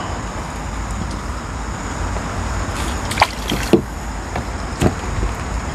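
A few short splashes and knocks about three to five seconds in, as a hooked fish is scooped into a landing net at the water's surface, over a steady low outdoor rumble.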